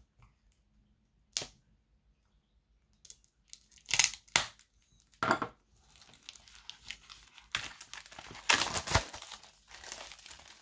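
Clear plastic shrink-wrap on a sketch pad being slit with a small hand cutter, giving a few sharp separate scratches and snaps, then peeled off and crinkled by hand. The crackling runs continuously from about halfway through and is loudest near the end.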